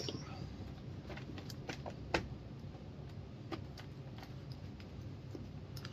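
Scattered light clicks and taps of small chainsaw parts and tools being handled during reassembly, with one sharper click about two seconds in, over a low steady hum.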